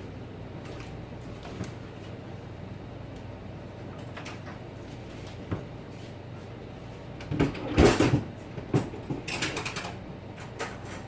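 Kitchen handling sounds over a steady low hum: a few light knocks, then about seven seconds in a burst of louder knocks, clatter and rustling as things are moved about on the counter.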